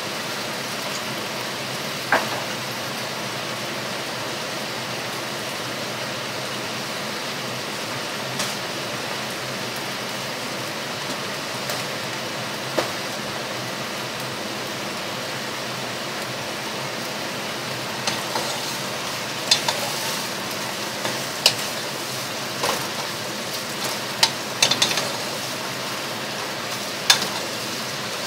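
Chinese cabbage and mushrooms sizzling in a pot, a steady hiss. From a little past halfway a wooden spoon stirs them, with scattered knocks against the pot.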